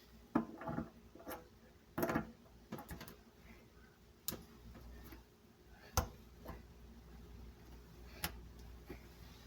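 Faucet parts being handled and fitted back into the faucet body: a few sharp clicks and light knocks spread out, with faint scraping between them.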